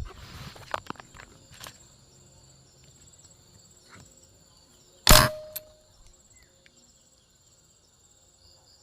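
A single sharp shot from a PCP air rifle about five seconds in, followed by a short ringing tone. Insects buzz steadily at a high pitch, and there are a few light clicks in the first two seconds.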